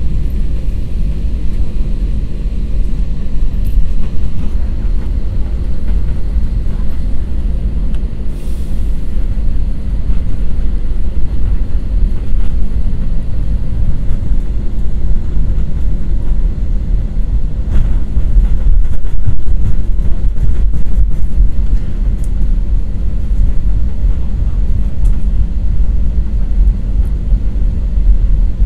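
Steady low rumble inside an airliner's cabin as it taxis after landing: jet engines idling and wheels rolling on the taxiway, with a few faint clicks about two-thirds of the way through.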